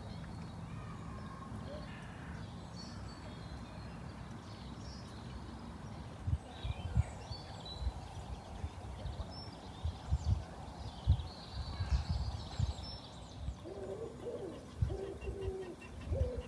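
Small birds chirping faintly, with bumps of wind noise on the microphone from about six seconds in. Near the end a pigeon starts cooing in a repeated phrase.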